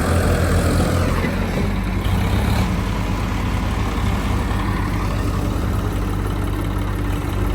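Heavy diesel engine running steadily, a little louder for the first second or so.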